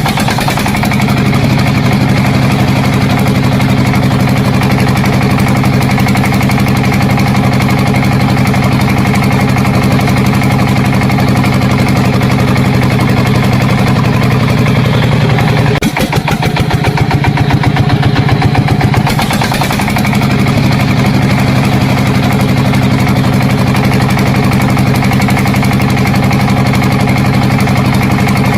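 An engine running steadily at idle, a low, even hum; a bit past halfway it briefly changes, with a quicker pulsing for about three seconds, then settles back to the same idle.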